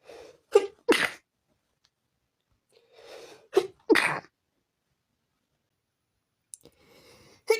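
A person sneezing over and over in a fit of dust-triggered sneezes. Each sneeze is a short breathy intake followed by two sharp bursts in quick succession, coming about every three and a half seconds, with the third beginning near the end.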